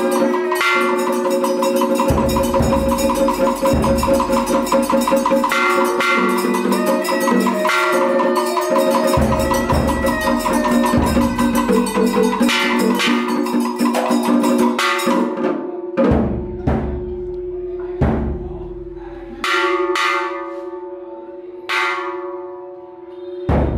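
Temple ritual percussion: drums and gongs beaten in a fast, dense roll, then thinning after about fifteen seconds to a few single strikes that are each left ringing, over a steady held tone.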